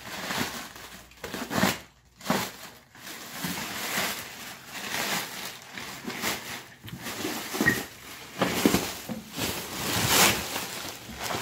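Clear plastic stretch-wrap film being cut and pulled off, crinkling and rustling in irregular bursts.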